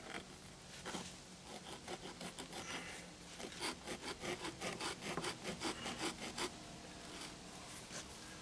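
Natural stone ledger panel scraped back and forth against the mortar on a concrete-block wall as it is worked into place: a run of quick gritty scrapes, about three a second, busiest in the middle, then trailing off.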